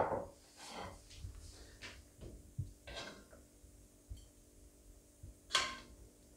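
Quiet clatter of dishes and a serving spoon: a bowl set down, then a spoon scooping beef stew out of a cooking pot, with scattered soft knocks and one louder clink with a short ring near the end.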